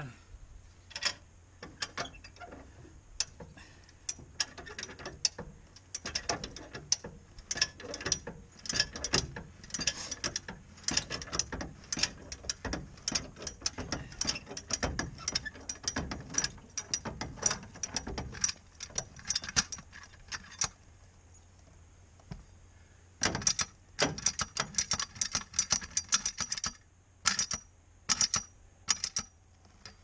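High-lift jack ratcheting in quick runs of sharp metal clicks as its handle is pumped, driving the jack foot down onto a tire's sidewall to break the bead loose from the rim. The clicking stops for a couple of seconds a little past two-thirds of the way through, then starts again.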